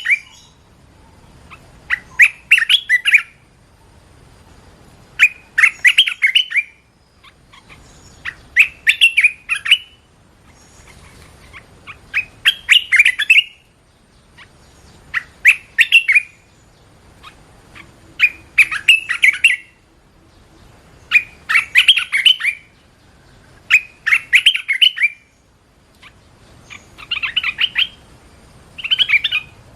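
Red-whiskered bulbul singing: short, bright, warbled phrases repeated about once every three seconds.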